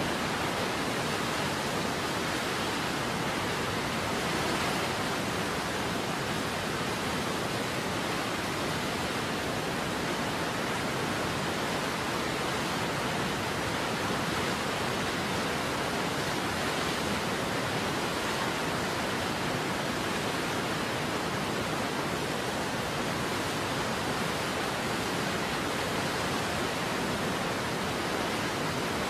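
Steady rushing roar of a waterfall, an even wash of noise that does not change in level.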